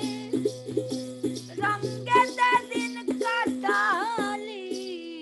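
Baul song: a one-string ektara plucked in a quick, steady rhythm on its drone note, while a woman's voice holds a long drawn-out sung phrase with vibrato over it.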